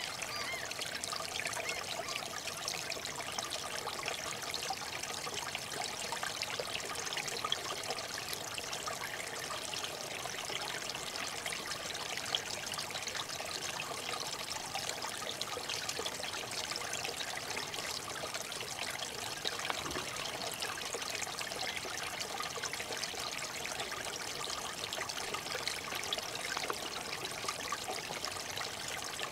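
Water trickling and splashing steadily.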